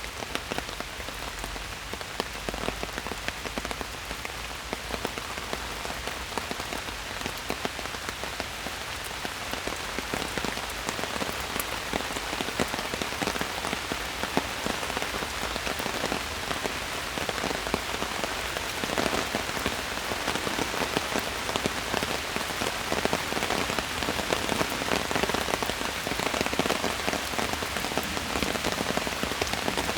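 Steady rain falling in a forest, a dense patter of many drops with scattered closer drop hits, growing slightly heavier toward the end.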